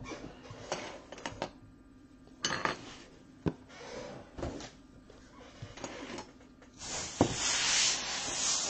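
Knocks, clicks and clatter of objects being moved about on a desktop, a cardboard case box and plastic card stands among them, with a loud steady hiss from about seven seconds in.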